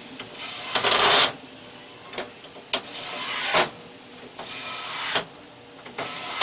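Cordless power driver running screws into a wooden 2x6 brace in four short runs, each a little under a second, with a few light knocks between them.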